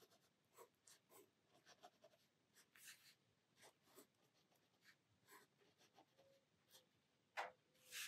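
Faint scratching and tapping of a black Faber-Castell Pitt artist pen's nib on sketchbook paper as short strokes are drawn, with one louder stroke near the end.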